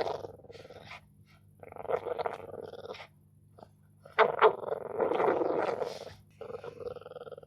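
Dogs play-fighting, growling in bursts: a shorter one about two seconds in, a louder, longer one starting sharply about four seconds in, and a fast-pulsing growl near the end.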